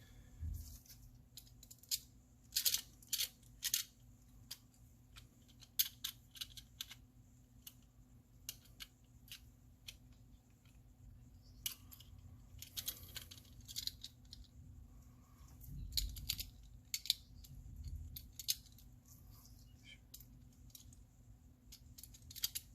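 Light, scattered clicks and taps of small metal and plastic parts being handled, with a few soft thumps near the middle, as a diecast model car's body and base are fitted back together with its small screws.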